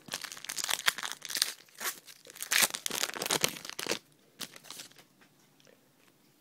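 A 2010 Panini Rookies & Stars football card pack being torn open and its wrapper crinkled by hand: a dense run of tearing and crackling for about four seconds, then only a few faint rustles.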